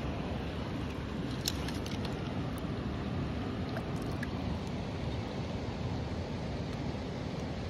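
Steady rush of the South Platte River, running a little high on spring flows, with a few faint ticks about a second and a half in.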